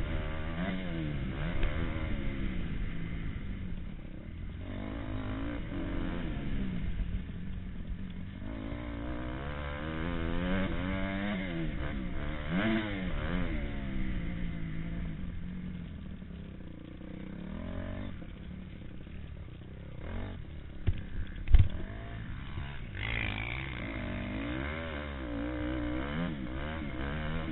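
Motocross bike engine racing around a dirt track, its pitch rising and falling again and again as the throttle is opened and closed, heard from a helmet-mounted camera. A sharp bang stands out about 21 seconds in.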